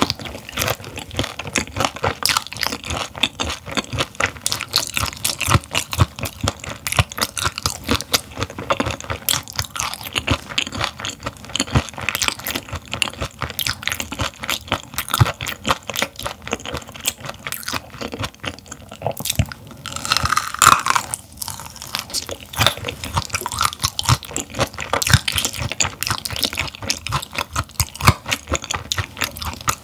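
Close-miked chewing of raw gizzard shad, with many small, irregular crunches and wet mouth sounds.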